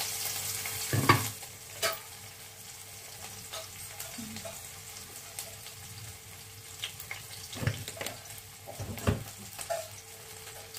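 Hot oil with cumin seeds sizzling in an aluminium kadhai. The sizzle is louder for the first second or so, then settles to a fainter steady hiss, with a few knocks of a utensil against the pan.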